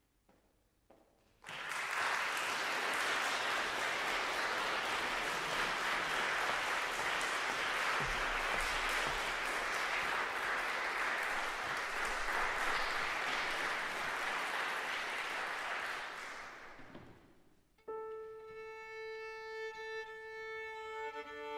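Audience applauding for about fifteen seconds, then dying away. A couple of seconds later a violin and piano begin playing, starting with a long held violin note.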